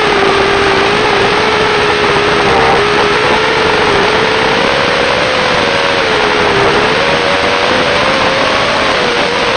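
ZMR250 FPV quadcopter's motors and propellers, heard close up through the onboard camera's microphone: a loud, steady whine whose pitch wavers up and down a little, over a constant rush of air noise.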